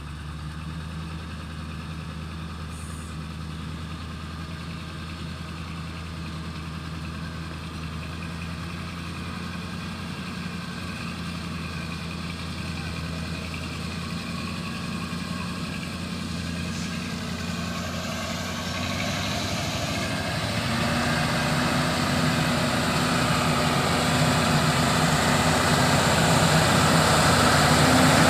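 Mitsubishi Fuso sugarcane truck's diesel engine running steadily as the loaded truck crawls along a muddy field track, growing steadily louder as it approaches.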